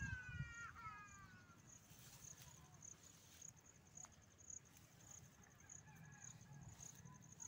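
A drawn-out animal call that falls in pitch and fades within the first second and a half. After it comes near silence, with a faint high note pulsing about twice a second.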